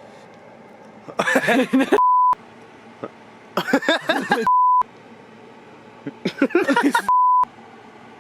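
A man's sneeze-like vocal outburst three times, each cut off by a short censor beep of one steady pitch that bleeps out its end.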